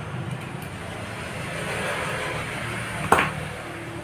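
Handling noises from a plastic wall switch being wired with a screwdriver, with one sharp click about three seconds in, over a steady background rumble.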